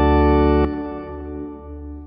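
Instrumental rock-song intro: a loud held organ chord that cuts off about two-thirds of a second in, leaving a quieter fading tail.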